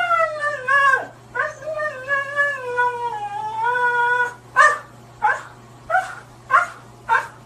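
Husky howling and 'talking': a short howl, then a long call that wavers up and down in pitch, then five short, sharp yelps about two-thirds of a second apart.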